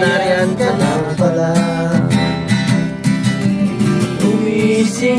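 Music: a song carried by strummed acoustic guitar chords, with a melody line over them.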